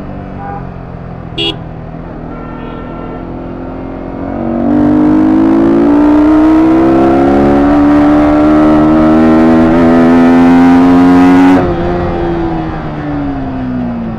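Sport motorcycle engine heard from the rider's seat, running steadily, then from about four seconds in getting much louder and rising steadily in pitch as the bike accelerates. Near the end the throttle is shut: the sound drops suddenly and the pitch falls as the engine slows. A brief horn beep about a second and a half in.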